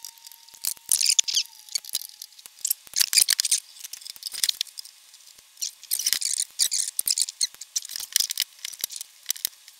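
Metal chassis cover of a video multiplexer being unscrewed and slid off: many irregular sharp clicks, ticks and scrapes of metal on metal and on the bench mat.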